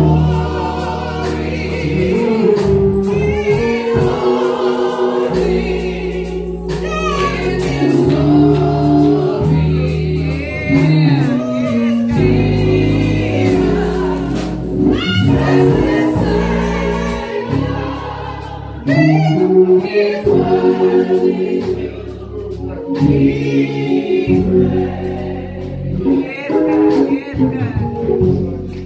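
Gospel singing by a group of voices, with long held low chords underneath.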